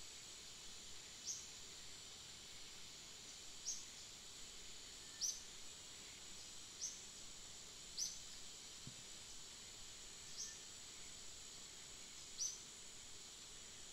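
Steady high-pitched insect drone, with a short high falling chirp repeating about seven times, every one to two seconds.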